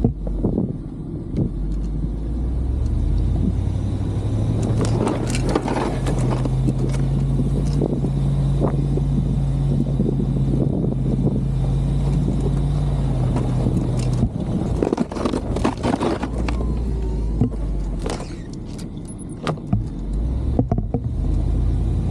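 1999 Chevy Suburban's engine pulling under load while its straight plow blade pushes snow: the note steps up a few seconds in, holds steady, then drops back about two-thirds of the way through. Scattered knocks and rattles run through it.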